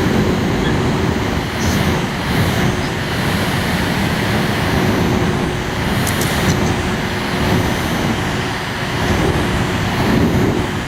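Small electric cooling fan running steadily: a constant rush of air with a faint steady hum.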